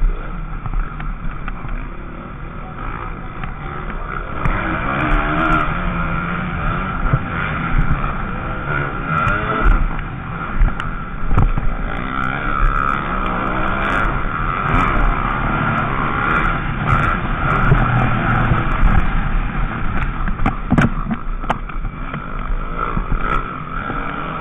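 Onboard sound of an MX2 motocross bike's engine, revving up and falling back again and again as the rider races around the dirt track, with a few sharp knocks from the bike hitting bumps.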